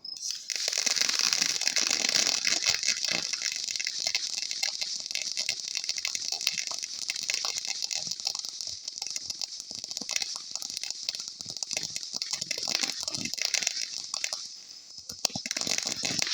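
Consumer firework throwing off dense crackling: a continuous rush of rapid small pops that drops away briefly near the end and then starts again.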